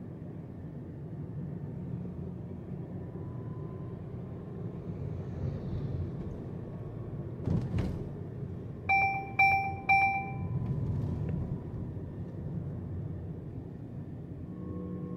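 Car driving with steady road and engine rumble heard inside the cabin. A single knock comes about halfway through, followed shortly by three short electronic beeps about half a second apart.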